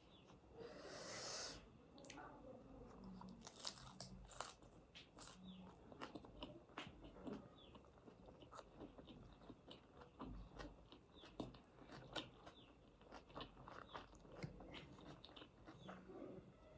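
A person chewing food close to the microphone, with many small irregular crunches and wet mouth clicks.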